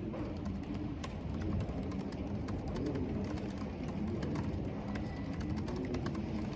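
Storm wind moaning through a corridor: a steady low rumble with a slowly wavering, hooting tone rising and falling. Irregular light clicks of keyboard typing run over it.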